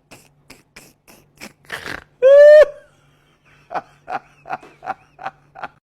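An animal grunting in short, rhythmic puffs about three times a second. About two seconds in comes one loud, high squeal lasting about half a second, and then the grunting resumes.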